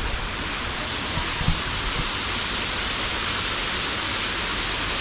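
Steady rushing of a waterfall, with a brief low thump about a second and a half in.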